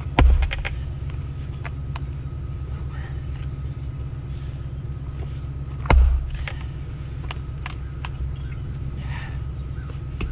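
Two heavy strikes of a splitting axe into a knotty firewood round on a chopping block, about six seconds apart, each a sharp crack over a deep thud. The knotty round does not split. A steady low rumble runs underneath.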